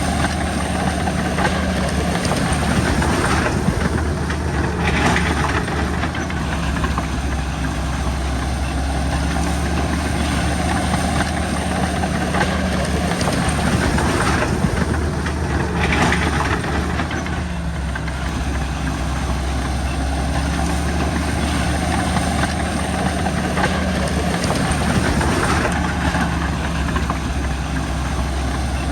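Heavy diesel engine of a crawler bulldozer running steadily, swelling a little louder a few times.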